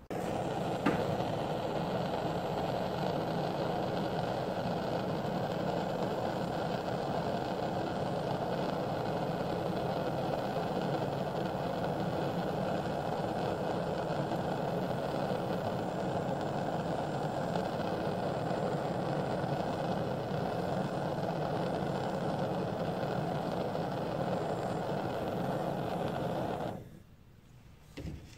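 Handheld gas blowtorch flame burning with a steady roar while heating a small can-metal crucible to melt lead; it cuts off abruptly near the end as the torch is shut off.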